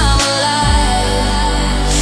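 Electronic pop instrumental: held synth chords over a bass line. The bass drops out briefly just after the start, then returns as a steady bass tone without the kick-drum beat.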